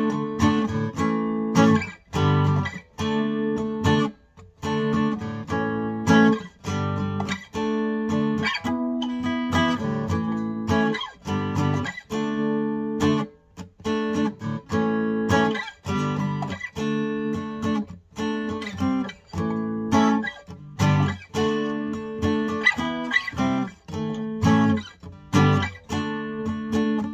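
A 2022 Gibson J-35 '30s Faded round-shoulder acoustic guitar played unplugged, strummed in a steady rhythm of chords with changes between them.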